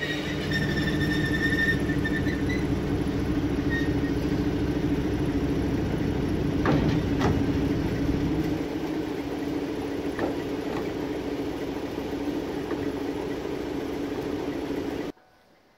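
Diesel engine of a PKP Cargo SM42 shunting locomotive running as the locomotive rolls slowly to a stop, then idling, with a brief high squeal in the first couple of seconds and a few sharp clanks midway. The sound cuts off abruptly just before the end.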